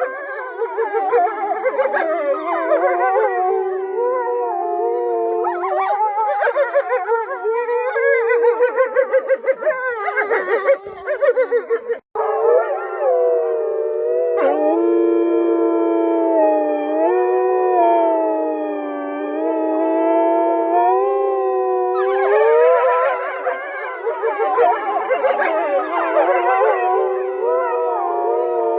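A pack of wolves howling in chorus: several long, wavering howls at different pitches overlapping. A brief break comes about twelve seconds in, then a stretch of steadier held howls before the mixed chorus returns.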